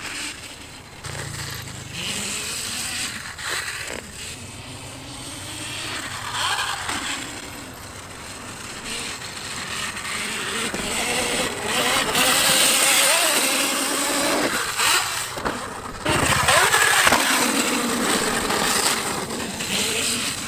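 Husqvarna EE 5 electric dirt bike being ridden on a dirt track: mostly rushing wind and tyre noise that swells and fades and gets louder in the second half. The motor itself makes little sound.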